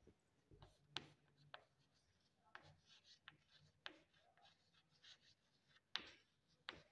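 Chalk writing on a chalkboard: faint scratchy strokes broken by sharp taps where the chalk strikes the board, about seven taps.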